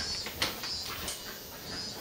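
A cat nosing at the camera, giving two light knocks about half a second apart near the start, the second the louder. Faint short high chirps come and go throughout.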